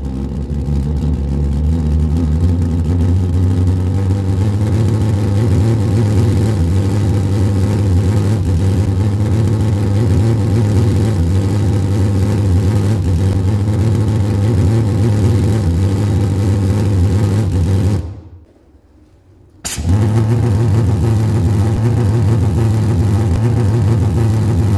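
Alcohol pulse combustion in a glass jar with a small hole in the lid: a steady, loud, low-pitched hum with many overtones, made by the flame pulsing in and out of the jar. Near the end it cuts out for about a second and a half, then comes back with a sharp click.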